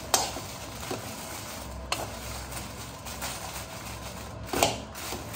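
Dried red chillies being stirred as they dry-roast in a pan with a little coconut oil: a light sizzle with scrapes of the spoon against the pan about once a second.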